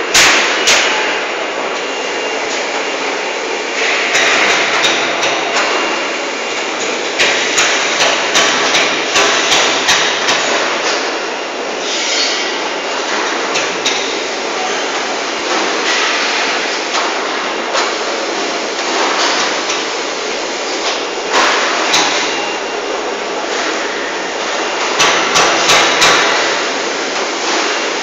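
Steady machinery noise from a solar water heater conveyor line, with clusters of sharp knocks and clicks over it.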